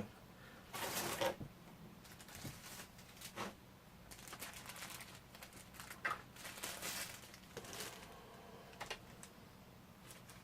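Plastic packaging and figure parts being handled: intermittent crinkling rustles and light clicks, with a longer rustle about six to seven seconds in.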